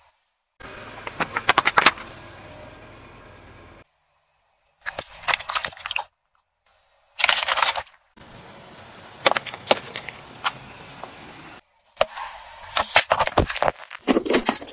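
A car tyre crushing objects on pavement, heard as several short takes of crackling, popping and crunching, each cut off abruptly by silence. Near the end, soda cans burst under the tyre with a loud pop and spray.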